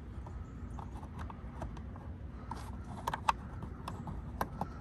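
Small plastic clicks and rubbing as fingers work a plastic cap into a car tail light housing, trying to seat it so it snaps in, over a steady low hum.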